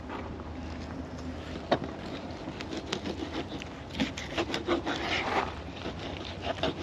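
Fillet knife sawing through a wahoo along the backbone, the blade scraping over bone in short rasping strokes that come thick and fast from about two and a half seconds in, with one sharp tick just before.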